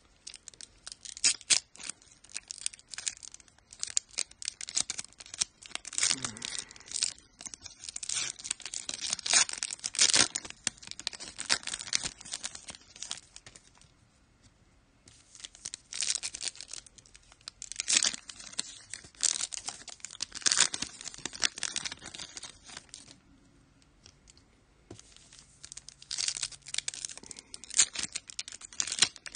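Trading-card pack wrappers crinkling and tearing as packs of Donruss Optic basketball cards are ripped open and the cards handled, in runs of crackling with a couple of short lulls.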